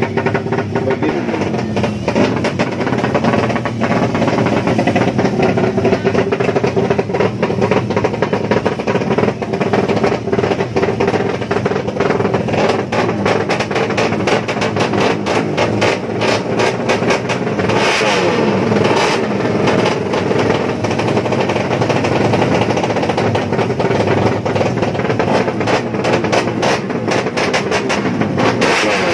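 Drag-racing motorcycle engines running loud and revving, with rapid, crackling firing throughout.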